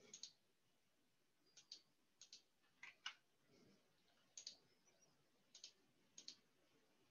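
Faint computer mouse clicks, mostly in quick pairs, about one every second, over near-silent room tone.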